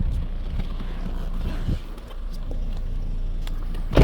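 Steady low hum of a wall-mounted air conditioner running, with light clicks and a sharp clack at the very end.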